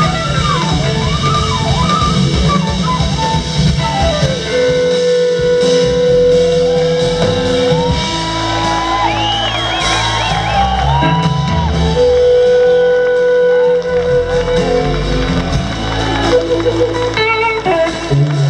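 Live blues-rock band playing: electric guitars over two drum kits and bass. A lead line holds long, steady notes and bends and glides between them.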